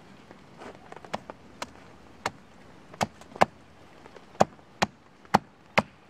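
Small hatchet chopping at the end of a thin wooden branch braced on a stump: a run of sharp wooden knocks, one or two a second, irregularly spaced, the strongest in the second half.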